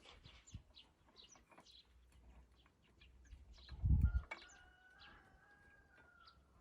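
Birds calling: short chirps throughout, and a longer drawn-out call from just past four seconds in that lasts about two seconds. A brief low thump comes about four seconds in.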